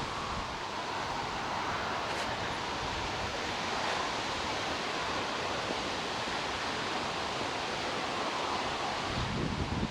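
Steady background road noise from distant motorway and main-road traffic, an even wash of sound without breaks. Wind buffets the microphone briefly near the end.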